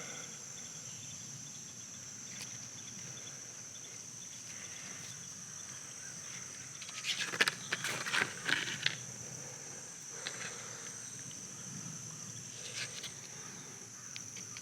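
Steady high-pitched chirring of crickets or other insects, with a cluster of clicks and rustles of handling about seven to nine seconds in and a few lighter ticks later.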